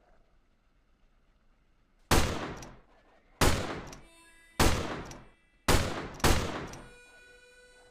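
Five shots from a Smith & Wesson Model 3 revolver, about a second apart with the last two closer together. Each is a sharp crack followed by a fading echo.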